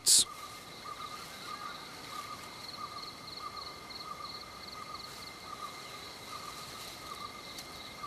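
Steady chorus of calling insects: several even, high tones held throughout, one of them pulsing rapidly.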